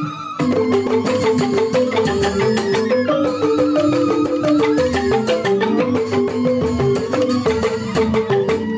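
Joged bumbung gamelan music: bamboo tube xylophones (grantang) struck in rapid, dense patterns, with bamboo suling flutes playing a wavering melody above them.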